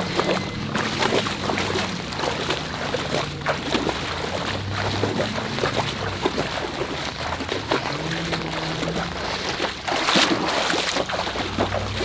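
Footsteps wading and splashing through ankle-deep floodwater, one slosh after another.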